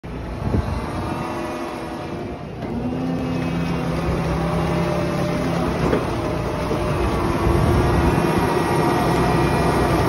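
Two-row leek harvester on tracks running: a steady engine hum with the noise of its working machinery, and a few sharp knocks near the start and about six seconds in.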